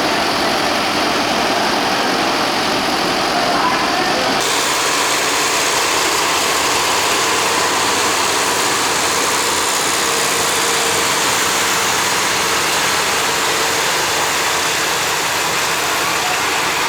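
Diesel train's engine running steadily and loudly, its sound changing abruptly about four seconds in.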